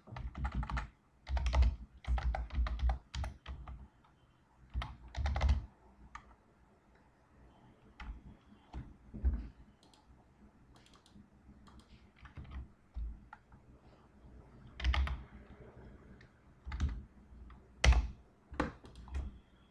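Typing on a computer keyboard: quick bursts of keystrokes for the first several seconds, then slower, scattered single key presses, as a word is typed and corrected.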